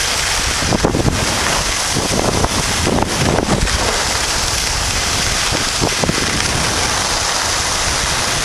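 Wind rushing over the microphone of a camera carried by a skier moving downhill, a loud steady noise, mixed with the hiss of skis sliding on groomed snow.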